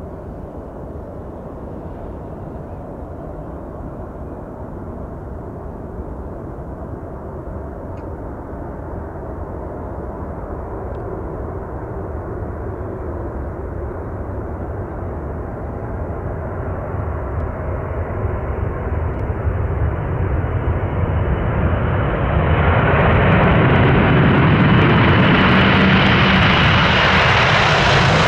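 Boeing 747's four jet engines at takeoff power, a deep rumble that grows steadily louder as the jet comes nearer. About twenty seconds in a harsher high hiss joins the rumble, and the sound is at its loudest near the end.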